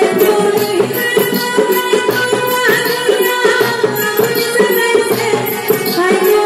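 A woman singing a song into a microphone, amplified, with a live band of tabla, harmonium and banjo keeping a steady beat behind her.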